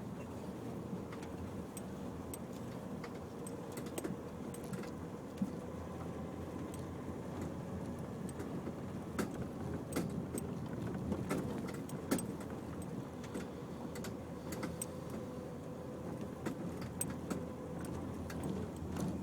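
Cabin noise of a Nissan X-Trail driving slowly over a rough unsurfaced track: a steady engine and tyre rumble with a faint steady hum. Irregular clicks and rattles from loose items and trim jolting over bumps are busiest in the middle.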